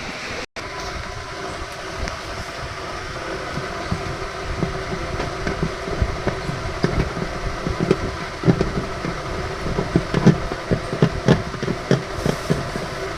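Washing machine running, with a steady hum and irregular knocking and rattling that grows busier about halfway through.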